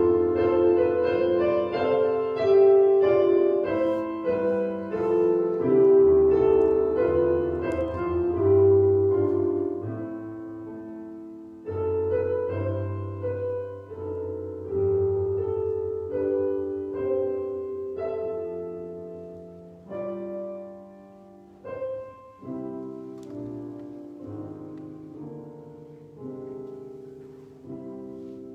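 Piano playing a slow, quiet instrumental piece of sustained chords and melody, growing softer about ten seconds in and again near the end.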